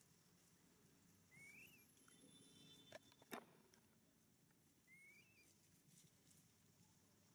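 Near silence outdoors, with two short high chirps, one about a second in and one about five seconds in, and a single sharp click a little after three seconds.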